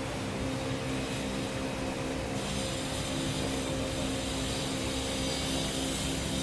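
A steady mechanical hum holding several fixed tones, without a break.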